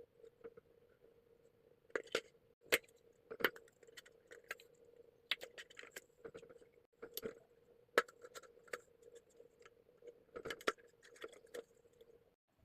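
Irregular light clicks, taps and short rustles of small objects being handled, most of them from about two seconds in, over a faint steady hum that stops just before the end.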